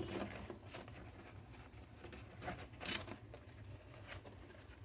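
Faint crinkling and a few light clicks from a heat-softened plastic container being handled and pressed into shape.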